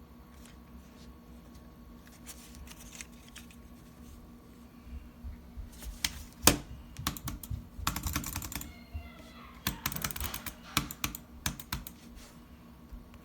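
Clicking and clacking of computer keys and buttons in irregular runs, sparse at first and busiest in the second half, with one sharp loud click about six and a half seconds in.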